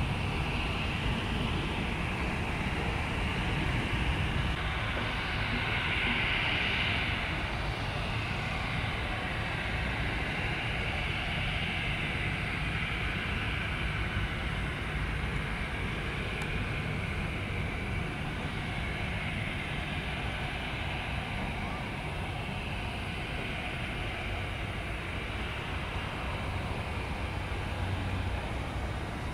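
Airliner engines running steadily: a low rumble under a high whine that slowly wavers, a little louder several seconds in.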